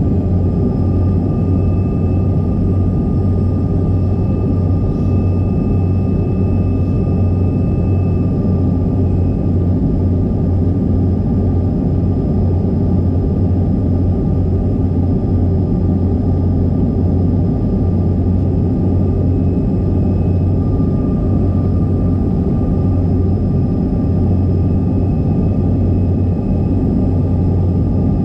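Steady in-flight cabin noise of a CRJ200 regional jet: a loud, even low rumble of airflow and its rear-mounted GE CF34 turbofans, with a thin steady whine above it.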